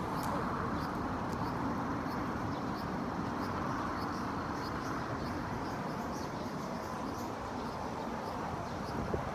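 Outdoor urban ambience: a steady wash of distant traffic noise and indistinct voices of a crowd, with faint high ticks about twice a second.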